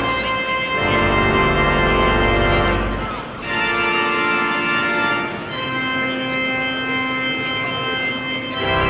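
Church pipe organ playing slow, sustained chords, with deep pedal notes sounding under the first three seconds and returning near the end.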